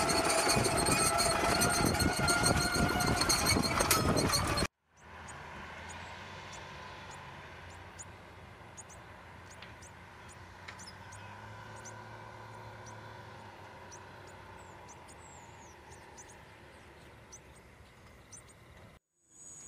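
An engine running close by, loud and steady with a high whine over a rough rumble, stops at a sudden cut after about five seconds. A faint, distant vehicle engine hum follows, with scattered small chirps and clicks.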